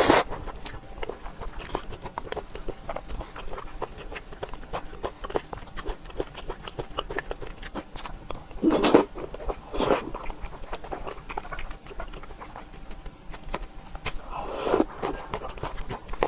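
Close-up chewing and lip-smacking of a person eating, a rapid run of wet mouth clicks, with a few louder mouthfuls about nine and ten seconds in and near the end.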